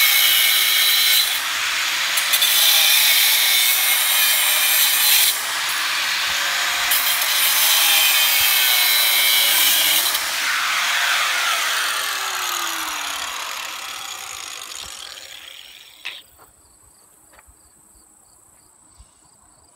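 Angle grinder cutting through the steel wires of a welded-wire hog panel. About ten seconds in it is released and winds down with a falling whine, fading out over the next few seconds.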